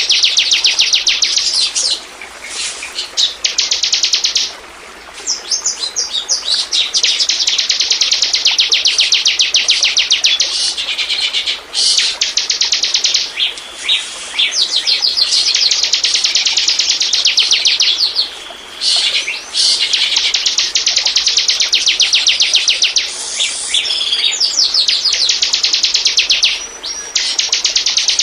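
Ciblek (bar-winged prinia) singing: long, loud trills of rapid high chips repeated several times a second, broken by short pauses about every few seconds, as played to lure or stimulate other birds to sing.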